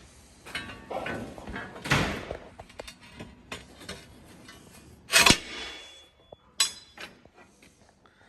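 Heavy steel guard parts and mounting brackets knocking and clanking together as they are handled and fitted to the skid steer. The loudest is a sharp metal clank about five seconds in that rings briefly, followed by a ringing clink a little later.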